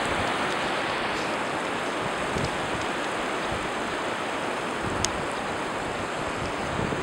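Steady hiss of ocean surf and wind on a beach.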